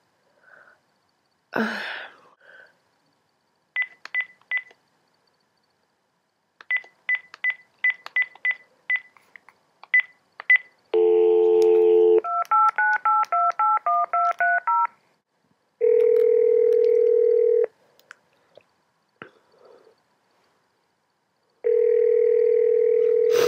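A telephone placing a call. First comes a run of short keypad beeps. About eleven seconds in a dial tone sounds briefly, then a quick string of touch-tone digits. The ringback tone then rings twice, two seconds each, about four seconds apart.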